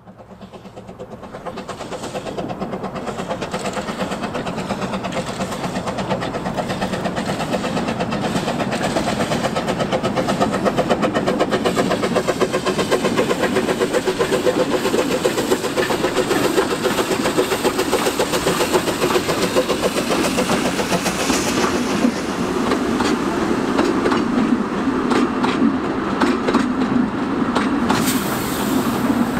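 Narrow-gauge steam locomotive working a short freight train past: its exhaust beats grow louder over the first several seconds as it approaches, then the wagons roll by on the rails.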